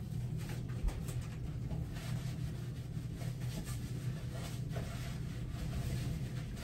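Faint rustling and light rubbing of a disinfecting wipe worked around the base of a toilet, with a few soft ticks, over a steady low hum.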